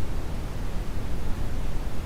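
Steady brown noise: an even, unbroken hiss whose energy is strongest in the deep bass and thins out toward the highs.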